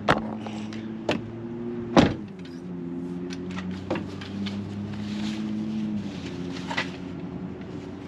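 Sharp knocks and clicks of tent poles and fittings being handled and pushed into place, the loudest about two seconds in, over a steady low hum.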